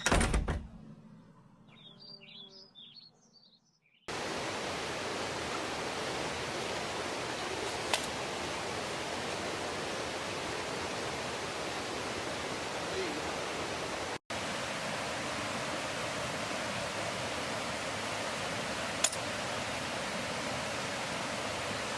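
Steady, even rushing of a mountain stream. For the first four seconds, before the stream sound sets in, there is a brief loud sound at the start, then quiet with a few bird chirps.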